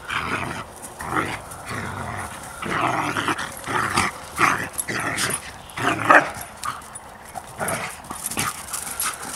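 Dogs play-fighting, vocalizing in repeated short bursts, loudest about six seconds in, with a brief lull just after before a few more bursts.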